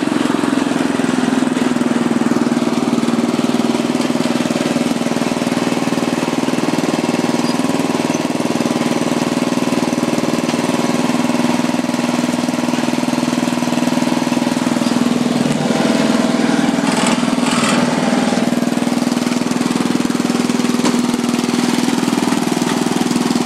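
Murray riding lawn mower's engine running at a steady speed while the mower is driven over rough dirt and grass, with a few brief knocks about two-thirds of the way through.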